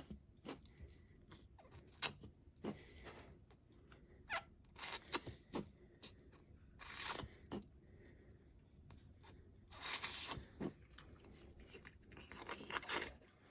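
Nitrile-gloved hands handling a newborn puppy while clearing its nose with a bulb syringe: scattered clicks and crackles, with two longer hissing rustles about seven and ten seconds in.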